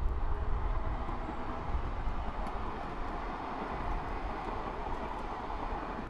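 Steady rumble and rush of passing motor traffic, beginning abruptly.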